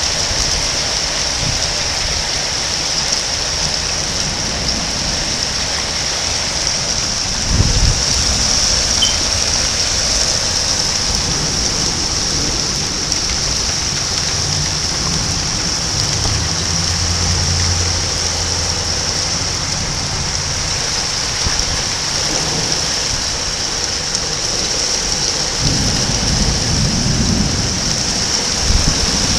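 Thunderstorm: steady rain with thunder. A short, sharp thunderclap comes about a quarter of the way in, a long low rumble of thunder around the middle, and another rumble near the end.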